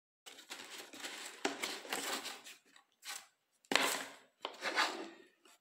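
A tight cardboard sleeve scraping as it is dragged off a hard plastic drill case, followed by a few sharp knocks of the plastic case being handled on the table.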